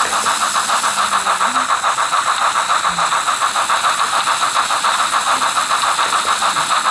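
Trix model light Mikado 2-8-2 steam locomotive's DCC sound decoder playing steady exhaust chuffs, about five a second, with a hissing steam sound, as the model runs at shunting speed.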